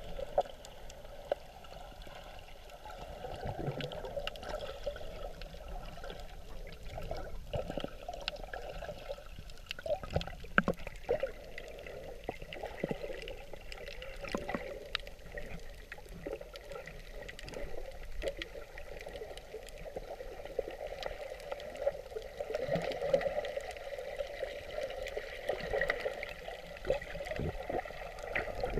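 Muffled underwater sound heard through a camera's waterproof case: a steady wash of moving water and gurgling, with scattered small clicks and pops.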